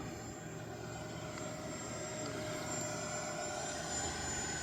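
3D-printed T-2 Buckeye RC model plane in flight, its electric motor giving a steady high whine with a lower tone beneath, the pitch drifting slightly.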